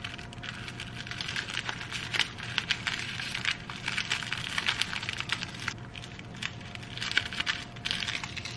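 Plastic onigiri wrapper film crinkling and crackling in quick, irregular bursts as it is folded around a rice ball, over a faint steady hum.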